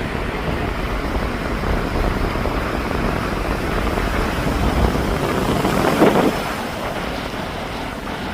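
Sea surf washing on a beach, with wind buffeting the microphone; a louder surge about six seconds in.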